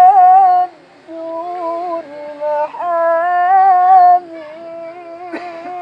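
A high male voice singing a sholawat melody, holding long notes with melismatic ornaments and vibrato, with a brief breath pause about a second in.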